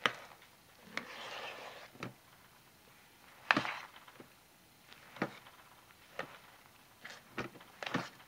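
A metal spoon knocking and scraping in a crock pot while stirring a stiff, crumbly hot-process soap mixture: uneven sharp knocks roughly once a second, the loudest about three and a half seconds in, with a gritty scraping rustle about a second in.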